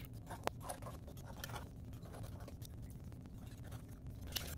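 A knife scraping and clicking against a butter clam's shell as the meat is cut free from its attachment points: faint scratching with scattered small clicks, one sharper click about half a second in.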